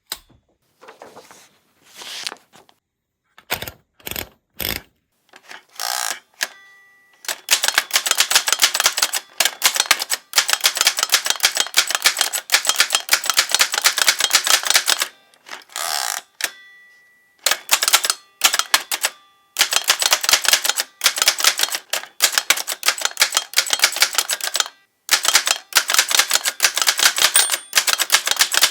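1914 Corona 3 folding typewriter being typed on: its typebars strike a new platen in fast runs of clicking keystrokes, broken by short pauses, after a few separate clacks at the start. A short ring sounds twice.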